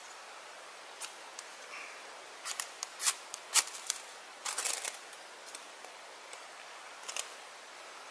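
A ferrocerium rod scraped with a steel striker, a run of short sharp rasping strikes with the loudest two about three and three-and-a-half seconds in, then a quick flurry near five seconds. The strikes throw sparks onto cotton wool tinder, which catches.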